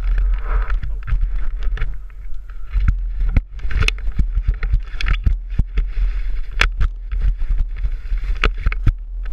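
Off-road enduro ride heard from a GoPro: a steady low rumble of wind on the microphone, broken by frequent sharp knocks and rattles from the rough ground.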